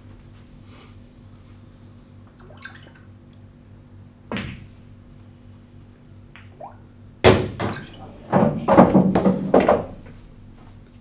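A pool cue strikes the cue ball once, about four seconds in. About three seconds later comes a loud thunk, then a couple of seconds of clattering knocks as a ball drops into a pocket and rattles through the table's ball return.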